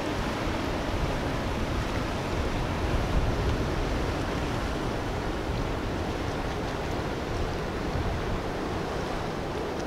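Steady rush of churned water from a Pershing 72 motor yacht's wake as it cruises past, with a low rumble underneath.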